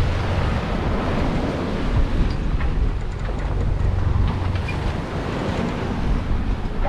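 Wind buffeting the microphone over the rush of rough sea breaking and foaming along the hull of a heeled sailboat under way. The noise runs steadily, with small swells as the waves pass.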